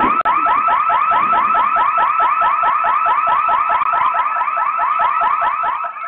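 Electronic security alarm siren sounding loudly: a fast, steady train of short rising electronic whoops, about five a second, fading near the end.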